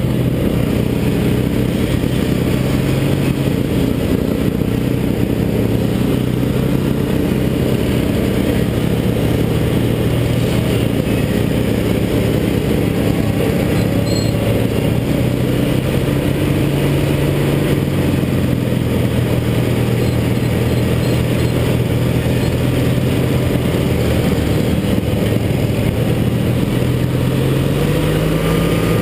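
Racing lawn mower engine running hard and steady from the driver's seat, with other racing mowers' engines mixed in. Near the end its pitch rises as it speeds up.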